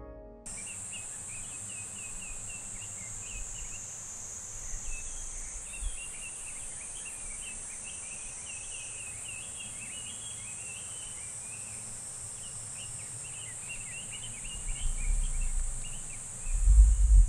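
Small birds chirping and twittering in a winter forest over a steady high hiss, with a few low rumbles, the loudest near the end.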